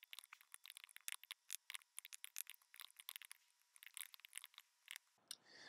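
Computer keyboard being typed on quickly: a fast, irregular run of faint key clicks that stops shortly before the end.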